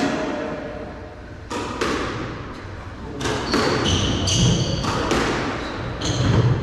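A squash rally on a wooden-floored glass court: the ball cracks sharply off rackets and walls several times from about a second and a half in. In the second half these mix with high, short squeaks of players' shoes on the court floor and dull footfalls.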